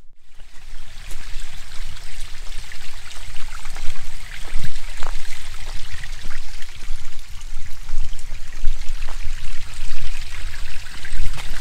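Water of a stream running steadily, with a low rumble underneath.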